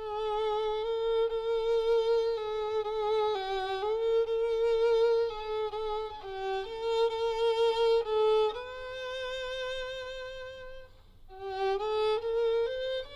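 Solo violin playing a slow melody of long, held notes with vibrato. It fades briefly about two seconds before the end, then picks up again.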